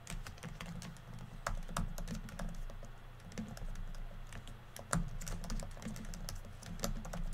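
Typing on a computer keyboard: a fast, irregular run of key clicks as words are typed.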